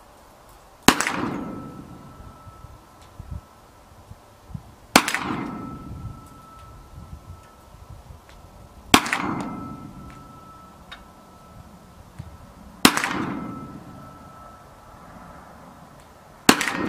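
Five shots from a TNW Aero Survival Rifle pistol-caliber carbine firing .45 Super, about four seconds apart, the last near the end. After each shot a steady high ring lingers for a couple of seconds: the steel target ringing from the hit.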